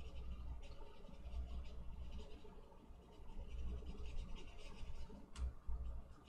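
Small paintbrush stroking thinned white oil paint onto paper: soft, scratchy brushing strokes, with one small tap near the end.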